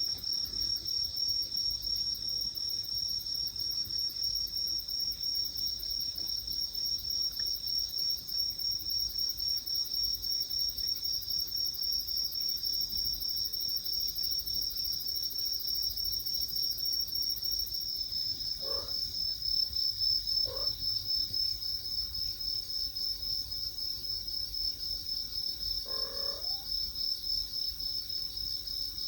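Crickets chirping in a steady, fast-pulsing chorus. Three short faint calls cut through it, two close together past the middle and one near the end.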